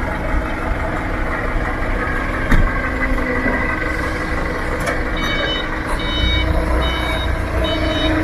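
A heavy vehicle's engine running, with a single sharp knock about two and a half seconds in. A reversing alarm starts beeping steadily about five seconds in.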